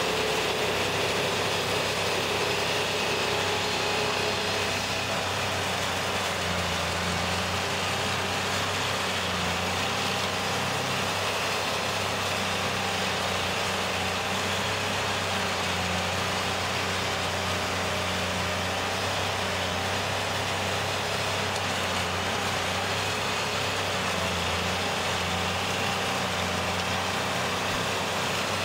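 Vermeer SC352 stump grinder running steadily, its spinning cutter wheel grinding a stump down into wood chips. A constant engine note sits under a wide, even rush of noise.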